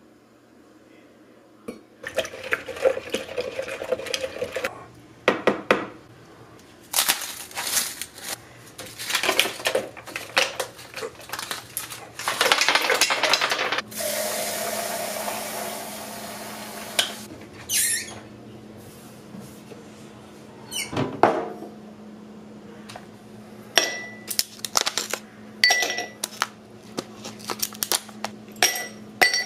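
Kitchen sounds of making iced tea: a run of clinks and knocks from dishes and utensils, then a kitchen faucet running water into a plastic pitcher for about three seconds. Near the end, ice cubes clink into a drinking glass a few times, and the glass rings after each drop.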